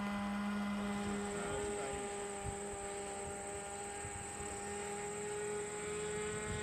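Radio-controlled model airplane flying overhead, its motor and propeller giving a steady droning hum; the note shifts about a second and a half in.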